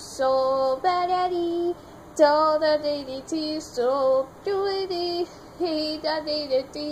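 A high-pitched voice singing a melody in held notes that step up and down, in several short phrases with brief breaks between them.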